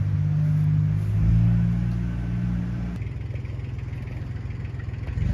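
Tractor engine running steadily. Its pitch shifts about a second in and settles lower and a little quieter at about three seconds.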